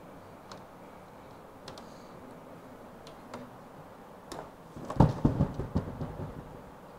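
Connecting leads being plugged into a lab panel board's terminal sockets: a few faint clicks, then a burst of knocking and clattering about five seconds in, the loudest part, as the leads are handled against the panel and meters.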